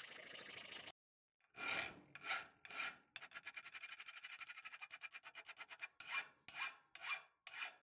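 Hand files rasping on the steel head of a cobbler's hammer held in a vise. First a round file works steadily in the handle eye; after a short break a flat file strokes across the top of the wide flat end: three long strokes, a fast run of short strokes, then four more long strokes.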